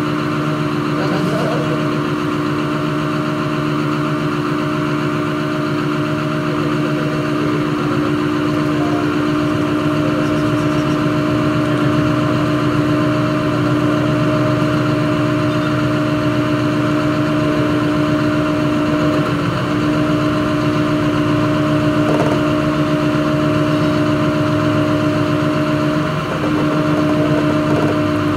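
Caterpillar 330F hydraulic excavator's diesel engine running steadily with a constant hum, the machine standing still. The hum dips briefly twice in the second half.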